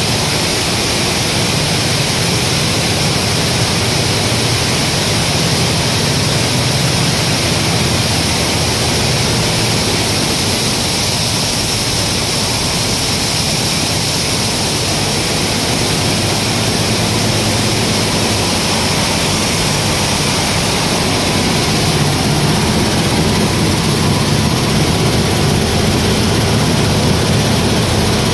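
Automatic grain cleaning and destoning machine running: a loud, steady mechanical noise with a low hum under an even hiss, as the vibrating sieve deck and blower sort the grain.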